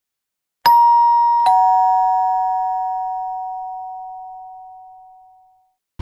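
Two-tone doorbell chime going ding-dong: a higher note struck about half a second in, then a lower note under a second later. Both ring on and fade away slowly over about four seconds.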